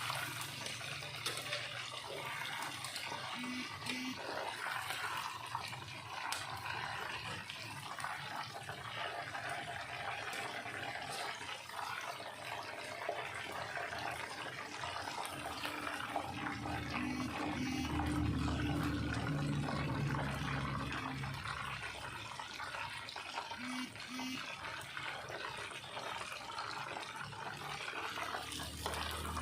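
Hot cooking oil sizzling and crackling steadily in a wok from chicken pieces being fried half-done.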